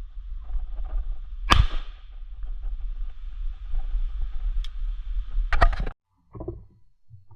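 A single shotgun shot about one and a half seconds in, over a low steady rumble. A quick cluster of sharp clicks comes near the end, and then the sound cuts off abruptly.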